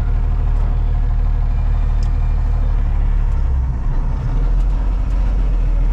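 Diesel truck engine running with a steady low rumble, heard from inside the cab as the truck crawls forward; the engine note shifts and dips briefly a little past halfway.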